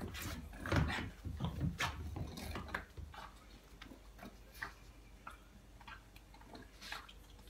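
Dog licking and lapping at a squeeze pouch of bone broth: wet clicking licks, busiest in the first three seconds, then sparser.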